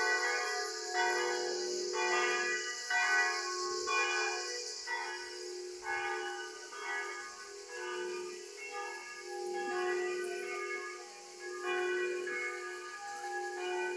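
Church tower bells pealing: several bells of different pitch struck over and over, about one to two strikes a second, their ringing tones overlapping.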